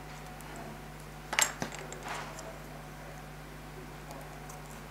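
Hard plastic model-kit parts being handled: a short clatter of light clicks about a second and a half in, then a softer one shortly after, over a faint steady hum.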